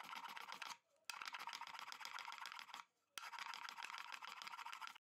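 Sandpaper, 120 grit, on a small hand block scrubbing quickly back and forth across the end grain of a hardwood cutting board: a rapid dry scratching. It pauses briefly twice and stops abruptly near the end.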